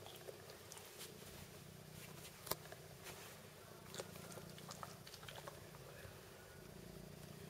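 Faint wet clicks and smacks of a kitten suckling at a dog's teat, with one sharper click about two and a half seconds in, over a low steady purr.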